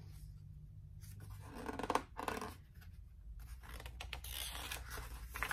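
Pages of a large hardcover picture book being turned by hand: paper rustling and flapping in two bursts, one about two seconds in and a longer one toward the end.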